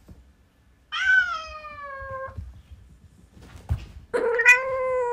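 Domestic cat meowing: two long, drawn-out meows, one about a second in and the other about four seconds in, each sliding slightly down in pitch.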